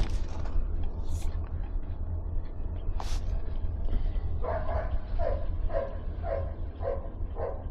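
A dog barking repeatedly, about two short barks a second, starting a little past halfway, over a steady low rumble.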